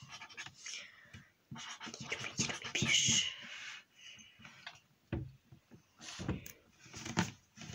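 Red felt-tip marker scratching on paper in short writing strokes, with a soft knock about five seconds in.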